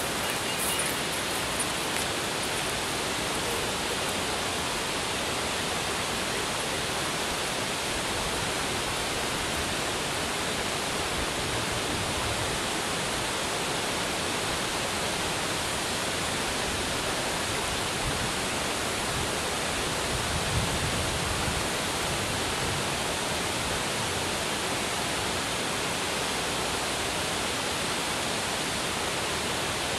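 Steady rushing noise of water pouring over a wide dam spillway, even and unbroken.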